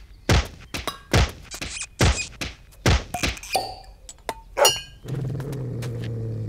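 A rhythmic run of hollow thunks and knocks, about two to three a second, some with a faint ringing after them. About five seconds in, they give way to a low, steady hum.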